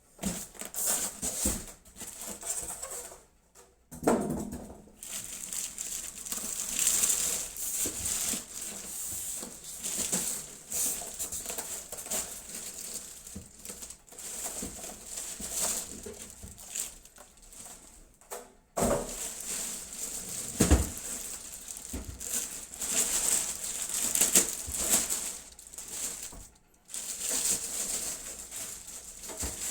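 Plastic packaging crinkling and rustling as it is handled, with a few knocks.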